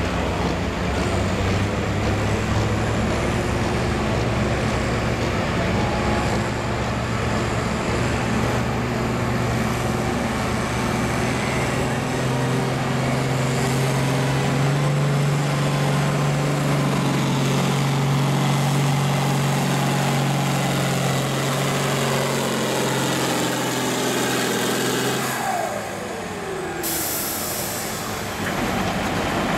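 Turbocharged International Harvester diesel tractor at full throttle under heavy load, pulling a weight-transfer sled, with a steady engine note that rises slightly partway through. Near the end the revs fall away as the pull ends and the throttle is let off.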